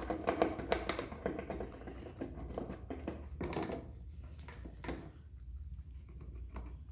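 A rabbit chewing on a wooden and woven-grass chew toy: a quick, uneven run of small crunching clicks, with a few louder crunches among them.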